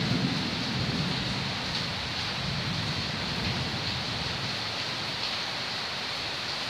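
Steady heavy rain, with a low rumble of thunder that is loudest in the first second or so and then dies away under the rain.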